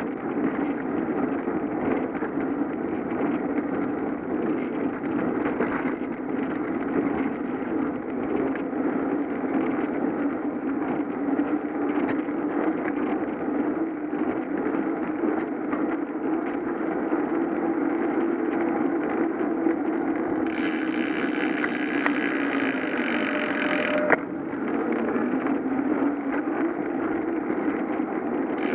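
Steady rush of wind and tyre noise while riding a bicycle, rising and falling a little with speed. About two-thirds of the way in, a higher hiss joins for three or four seconds and cuts off with a sharp click.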